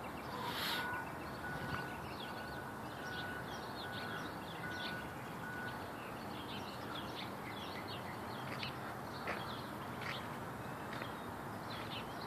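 Small birds chirping in many short calls over a steady background hum of outdoor noise, with a brief burst of noise just under a second in.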